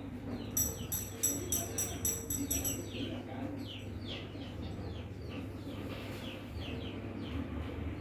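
Small birds chirping over and over in short, quick, downward-sliding notes. For the first few seconds a high, rhythmic pulsing of about four beats a second sounds with them, and a steady low hum runs underneath.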